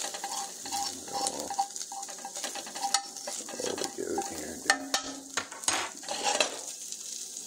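Diced ham pieces sizzling in a nonstick frying pan while a metal fork stirs them, clicking and scraping against the pan, with the sharpest scrapes a little past halfway.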